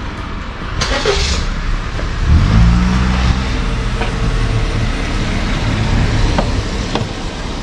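Daihatsu Move (LA100S) engine running, picking up revs about two seconds in and then holding steady, with a brief hiss about a second in and a few light ticks.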